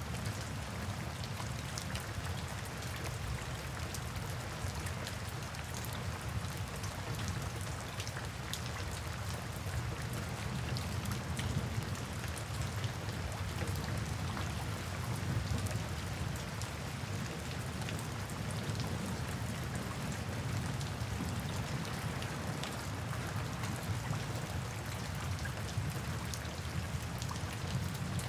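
Steady rain falling, a continuous hiss dotted with the sharp ticks of single drops, over a steady low rumble.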